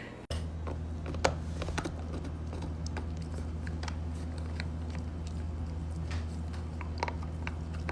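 A dog gnawing a hard yak cheese chew: irregular sharp clicks and scrapes of teeth on the hard cheese, over a steady low hum.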